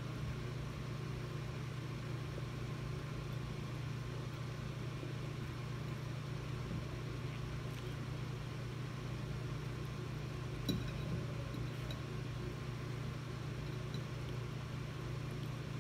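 A steady low hum, with a short clink of a metal fork against the plate about eleven seconds in and a fainter one near the end.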